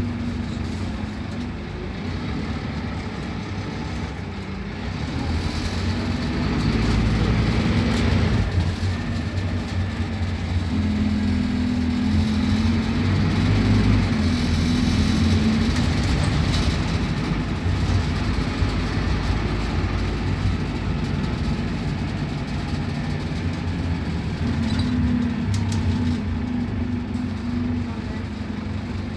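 Scania K280UB city bus's diesel engine running. It grows louder about six seconds in and again from about eleven to seventeen seconds, then settles back to a steadier hum.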